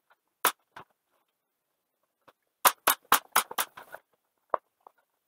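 Pneumatic brad nailer firing brads into wood: two sharp shots about half a second in, then a quick run of five or six shots about a fifth of a second apart, and one more near the end.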